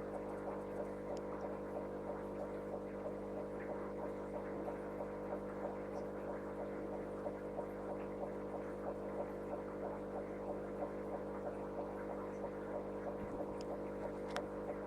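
Steady electric hum of an aquarium pump, several tones held at once, with soft regular ticking about three to four times a second.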